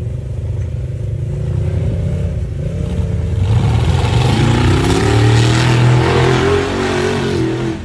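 Side-by-side UTV engine under throttle, its pitch climbing as it revs, with a loud rushing noise joining from about halfway through; the sound cuts off suddenly near the end.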